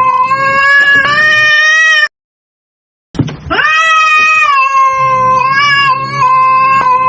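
A cat caterwauling: long, drawn-out, wavering yowls, the threat calls of a cat fight standoff. About two seconds in the sound cuts to total silence for about a second, then starts again with a sharp yowl that rises in pitch and holds.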